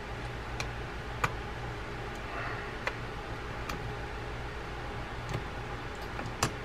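Small parts of a rusted, salt-crusted Piscifun Alljoz baitcasting reel clicking as they are handled during disassembly: about half a dozen sharp little clicks, the loudest near the end, with a brief scrape about two and a half seconds in. A steady low hum runs underneath.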